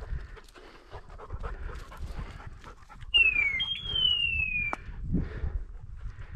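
A setter panting, with footsteps on rocky ground. About three seconds in, two high whistle-like tones glide slowly downward, the second lasting about a second.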